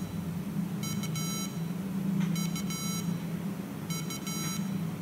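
SN76489 sound generator chip on an Arduino soundcard playing square-wave beeps: three short runs of rapid high notes, about a second and a half apart, over a steady low hum.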